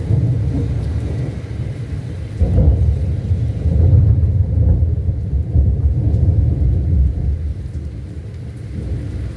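Thunder rolling during a thunderstorm: a deep rumble that swells about two seconds in, is loudest around four seconds and dies away near the end, with rain falling steadily underneath.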